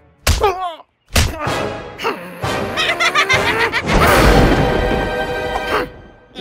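Cartoon soundtrack: music and sound effects, with short sliding vocal squeaks from a character near the start and a few sharp hits. About four seconds in, a loud rushing magic-spell effect comes as glowing energy balls appear in the character's hands, then fades away near the end.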